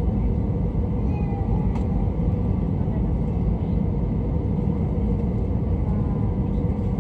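Steady low rumble of airflow and engines heard inside the cabin of an Airbus A320 during landing.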